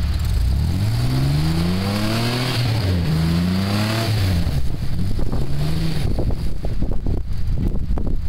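A 4x4 SUV's engine revving as it drives through deep snow: its pitch climbs twice in the first four seconds, then settles. From about six seconds in, irregular crunching and crackling from the tyres working through the snow joins it.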